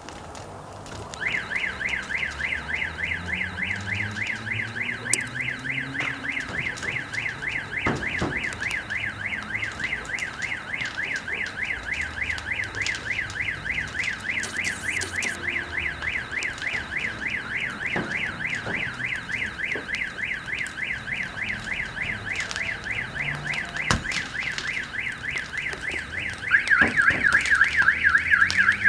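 Car alarm sounding a fast, evenly repeating warbling siren. It starts about a second in and gets louder near the end, with scattered sharp pops and cracks from the burning car.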